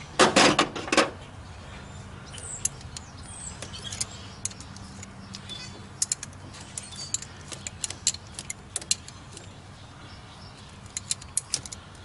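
A loud rattling clatter in the first second, then scattered light metal clicks and clinks of a wrench working the bolt on an old lead clamp-type battery cable end held in the hand.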